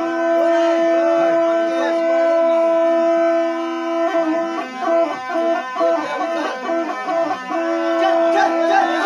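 A wind instrument plays ritual folk music: a steady held drone note with a bending melody over it. For a few seconds in the middle the drone breaks into short repeated notes, then it is held again near the end.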